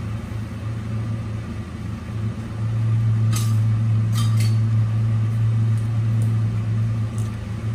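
A steady low hum with two light metallic clinks of kitchenware about three and four seconds in, followed by a few fainter ticks.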